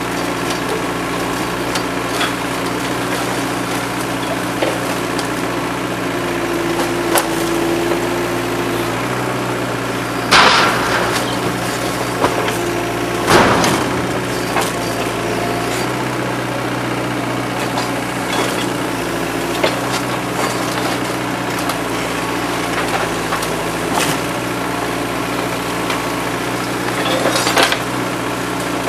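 Komatsu PC40-7 mini excavator's diesel engine running steadily under load, with a whine from the hydraulics around seven seconds in. Its rake crunches and splinters wooden house debris, with loud crashes about ten and thirteen seconds in and again near the end.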